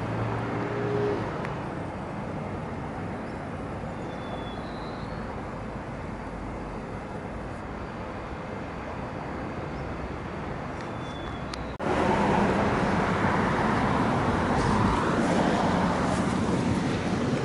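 Steady outdoor background noise, an even rush like distant road traffic or wind, with a few faint short chirps. It jumps louder at a cut about twelve seconds in.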